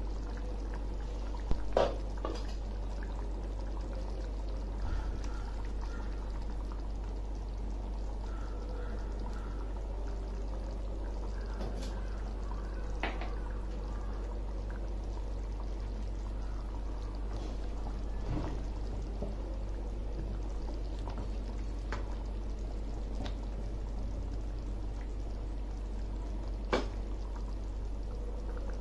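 Thick mutton gravy simmering in a steel pan, bubbling and plopping steadily over a low constant hum, with a short clatter about two seconds in and a few sharp pops later.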